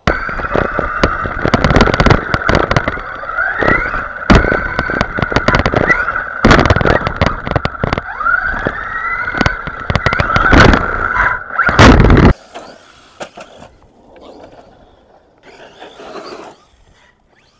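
Arrma Outcast 4S BLX brushless stunt truck heard up close from an onboard camera: a steady high motor whine that rises several times with throttle, over rapid knocks and clatter of the truck bouncing and landing on the dirt. It cuts off suddenly about twelve seconds in, leaving only the faint sound of the truck driving at a distance.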